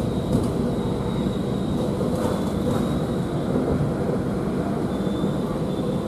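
Passenger train rolling into a station, heard from on board: a steady low rumble of the running train, with a faint high squeal coming and going.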